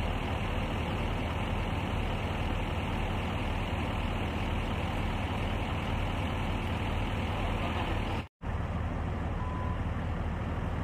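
Steady low rumble of a large vehicle engine idling, with street noise. The sound cuts out for an instant about eight seconds in.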